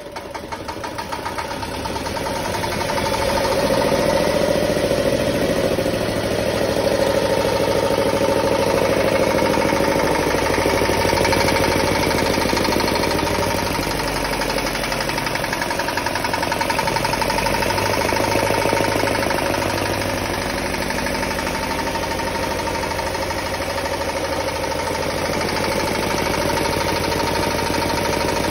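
Ajit DM10 single-cylinder air-cooled diesel engine (102 mm bore, 116 mm stroke) catching after an electric start and coming up to speed over the first few seconds, then running steadily.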